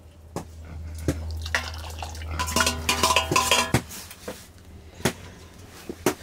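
Metal cooking pots, a steel bowl and a ladle clinking and knocking together, with a short run of ringing clinks in the middle and single sharp knocks scattered around it.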